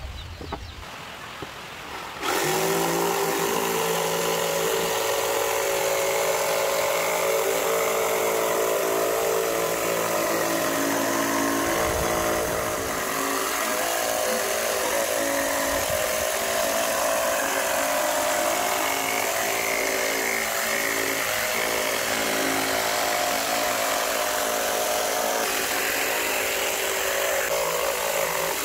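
Electric jigsaw starting up about two seconds in and running steadily at a constant pitch, its blade cutting along a curved line through plywood.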